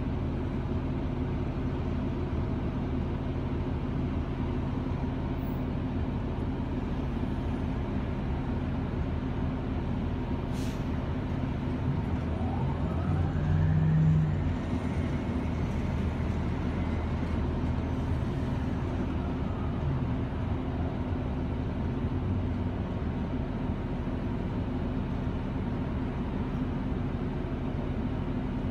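City bus engine and drivetrain heard from inside the passenger cabin: a steady low hum, with a single click about a third of the way in and a rising whine about halfway through as the bus gathers speed, before it settles back to the steady hum.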